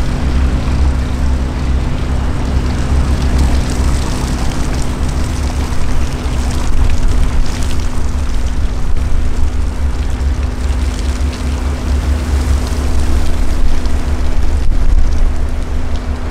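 Diesel engine of an inland cargo barge, a steady low drone with a constant hum, as the vessel passes close by.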